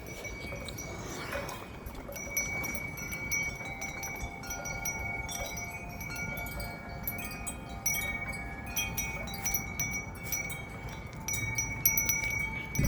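Metal wind chimes ringing in gusty wind: frequent light strikes and several long, overlapping pitches that keep sounding, over a low rush of wind.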